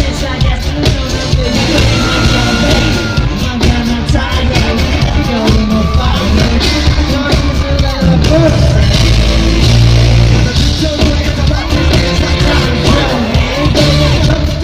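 Loud live pop music through a hall's PA with a singing voice over heavy bass, and fans yelling along.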